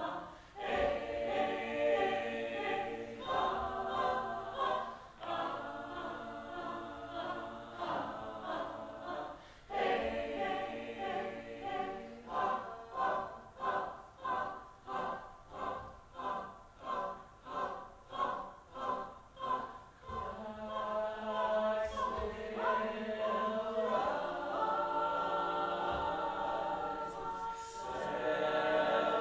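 Mixed choir singing a cappella in full chords, phrase by phrase; about halfway through the voices switch to short, rhythmic pulsed notes about twice a second, then settle into long held chords near the end.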